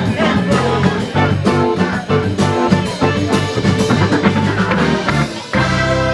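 Band music playing: a drum kit with bass and guitar and sustained chords, a full groove with steady drum hits.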